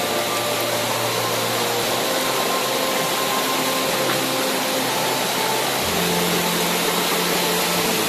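Small forest waterfall and rocky stream cascades rushing steadily, under soft background music of slowly changing held notes.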